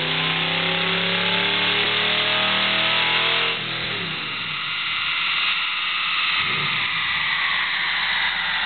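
Chevy 350 small-block V8 in a Porsche 914 at full throttle on a chassis dyno, its pitch climbing steadily through the pull. About three and a half seconds in the throttle is lifted: the engine note drops suddenly and falls away as the rollers and tyres spin down. A short rise and fall in pitch comes a few seconds later.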